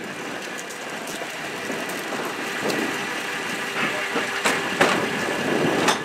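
CNG-powered side-loading refuse truck idling steadily. Several sharp knocks and rattles come from a plastic wheeled cart being pulled over the pavement, in the second half.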